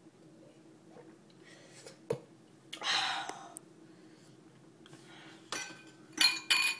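Glassware being handled on a table: a short rush of noise about three seconds in, then a few sharp clinks near the end, over a faint steady tone.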